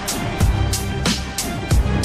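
Music with a steady drum beat: deep kick drum hits and sharp snare-like strikes at an even, moderate pace.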